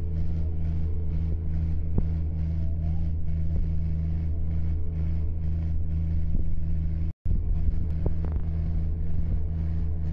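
Diesel tractor engines running flat out under heavy load in a tractor tug-of-war, a steady, deep drone. The sound cuts out for an instant about seven seconds in.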